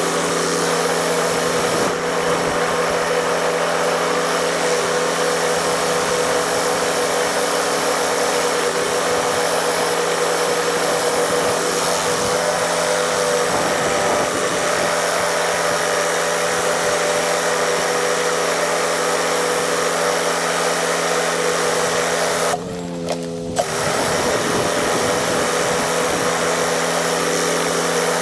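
Pressure washer running steadily: a steady engine or pump drone under the hiss of the water spray, briefly dropping for about a second around two-thirds of the way through.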